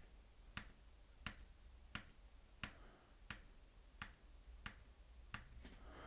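Steady, evenly spaced clicks at about 88 beats a minute, a slow tempo being tapped out.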